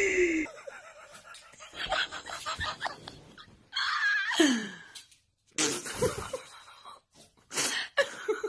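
A person laughing in several breathy bursts, broken by short pauses.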